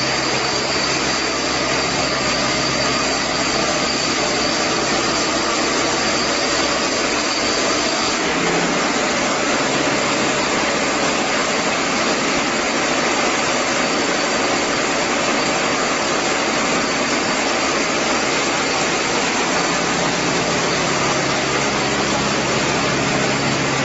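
Portable horizontal band sawmill running on its 9 HP gasoline engine: a steady engine drone mixed with the hiss of the band saw. A thin high whine drops away about eight seconds in.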